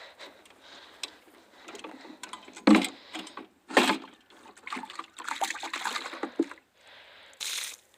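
Water splashing and sloshing in uneven bursts, with two louder splashes about three and four seconds in.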